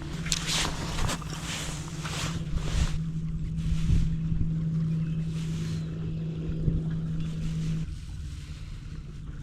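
Bass boat's motor running steadily, its hum stepping up in pitch twice and dropping back near the end, with wind and water noise around it.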